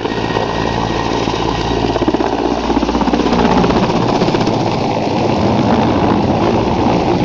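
Helicopter running close by: the rapid, even chop of the rotor blades over the steady drone of the engine.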